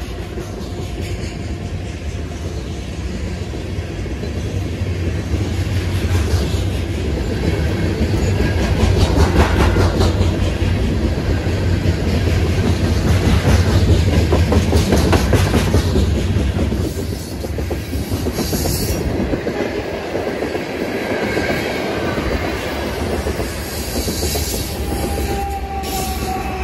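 Freight train's hopper cars rolling past at close range: a steady low rumble with wheels clacking over rail joints, loudest about midway and easing off after that.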